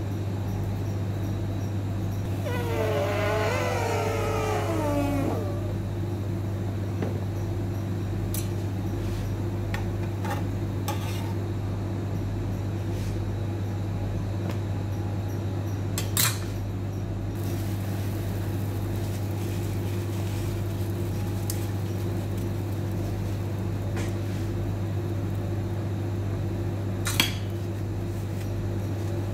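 Steady low hum with a long wavering call that falls in pitch about three seconds in. There are two sharp clicks, one midway and one near the end.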